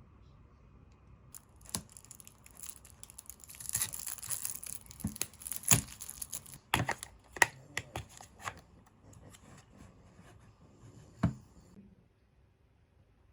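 Packaging being torn open and crinkled by hand, with scattered sharp clicks and taps; the rustling is densest about four to six seconds in, and one last tap comes near the end.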